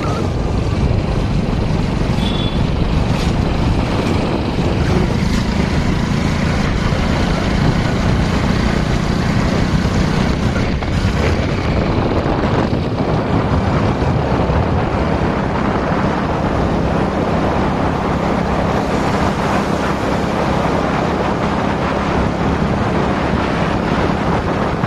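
Wind rushing over the microphone on a moving motorcycle, with the motorcycle's engine running steadily underneath.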